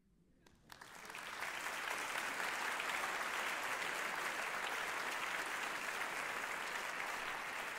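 Audience applause at the close of a song recital, starting about a second in and quickly building to steady clapping.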